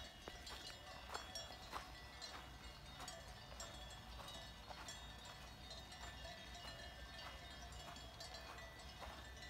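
Bells on a grazing flock of sheep, clinking faintly and irregularly, many small strikes overlapping.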